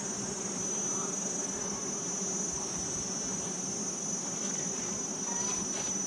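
Many wild honeybees buzzing in a low, steady hum around a disturbed nest, with a constant high trill of crickets or similar insects over it.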